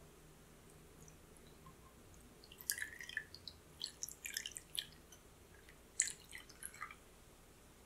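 Panna cotta cream mixture pouring through a fine-mesh strainer into a cake ring, splashing and dripping in irregular patters from about two and a half seconds in, loudest near the start of the splashing and again near six seconds.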